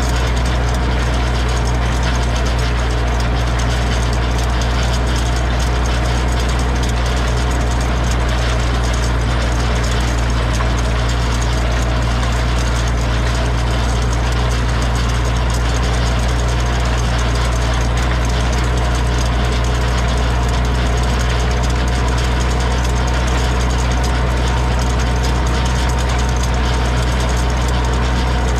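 Zetor 6245 tractor's four-cylinder diesel engine running steadily at an even speed.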